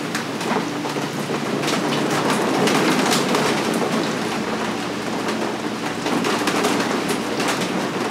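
Continuous deep breathing in and out through the mouth, each breath swelling and falling away every couple of seconds: the conscious connected breath of a breathwork session. A faint steady low hum runs underneath.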